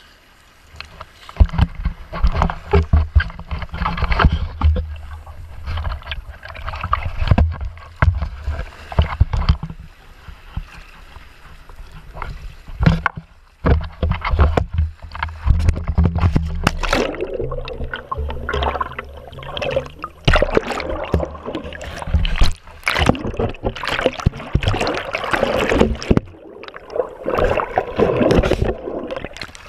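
Water sloshing and splashing over an action camera at the surface as it dips in and out, with muffled rumbling surges and frequent sharp knocks and splashes against the housing.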